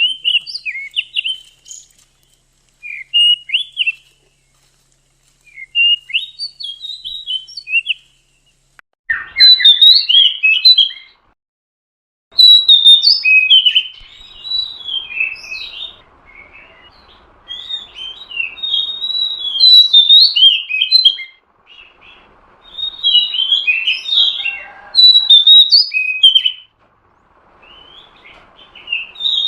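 Female Oriental magpie-robin (kacer) calling in short, quick chirping and whistled phrases. The phrases are sparse at first, then come louder and almost without a break from about a third of the way in.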